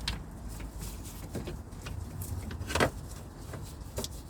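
A few short knocks and clinks of hand work on the steering pipe being fitted back, the loudest about two-thirds of the way through, over a low steady hum.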